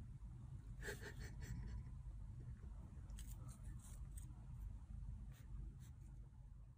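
Faint small clicks and rustles from a kitten handling and mouthing a small blue plastic object, heard over a low steady room hum.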